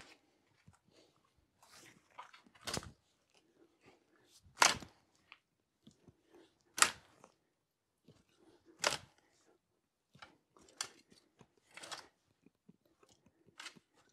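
Spade digging into loose, fibrous soil in a raised bed, each cut a short crunch, about one every two seconds.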